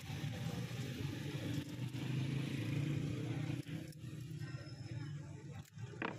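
Busy street ambience: a steady low rumble of traffic and background noise, a little louder two to three seconds in, with a short sharp click near the end.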